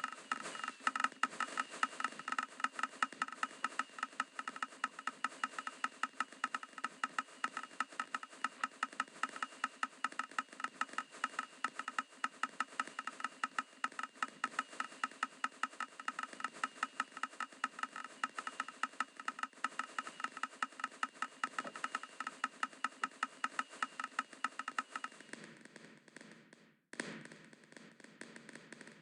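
A multi-shot firework cake firing a fast, even string of pops for about 25 seconds, then stopping.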